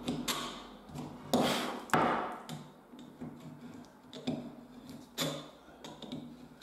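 Wood chisel chopping and paring in a mortise in a wooden newel post: about five separate sharp chops with short scraping tails, the loudest two close together about a second and a half in. The chisel is clearing out waste left after drilling the mortise with a 22 mm Forstner bit.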